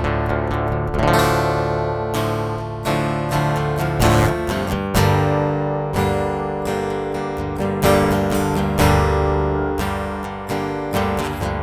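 Ibanez Concord acoustic guitar, tuned down a whole tone, played through its newly fitted Cherub GT-4 preamp. It is strumming chords that ring out between strokes, about one stroke a second.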